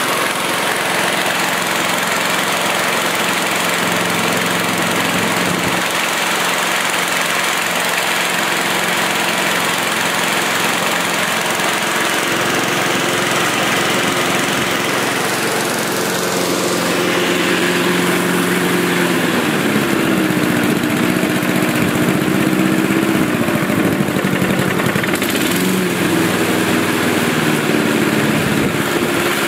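Mountfield Emperor rotary mower's Briggs & Stratton petrol engine running steadily. Its note shifts a little about two-thirds of the way through. It is an old, long-stored mower running on fresh fuel.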